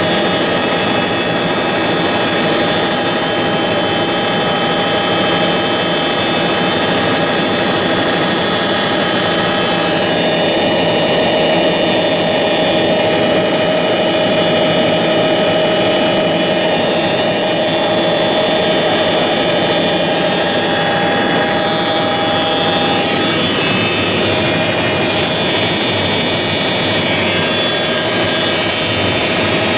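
Helicopter in flight heard from inside its cabin: a loud, steady mix of engine and rotor noise with a high whine of several steady tones over it.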